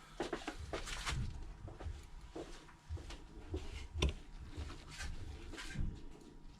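Scattered small clicks and taps of a precision screwdriver and tiny screws on an iPhone XS's internal metal plate as tri-point screws are driven back in.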